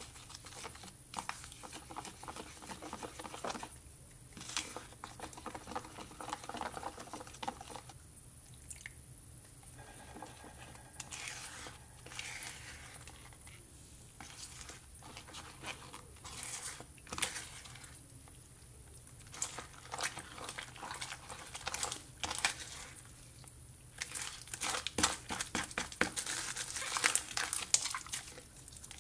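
A silicone spatula stirring and scraping around a plastic cup as glue and white powder are mixed into slime, with irregular scrapes and clicks. Near the end the sound becomes louder and busier, with sticky squishing and clicking as the thickened slime is kneaded by hand in the cup.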